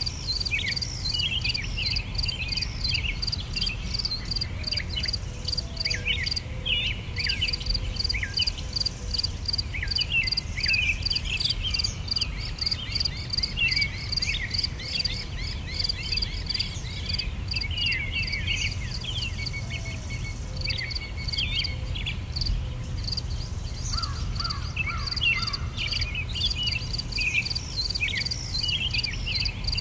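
Nature ambience: insects calling in a rapid, even pulse, with many short, falling bird chirps over it and a low, steady rumble underneath.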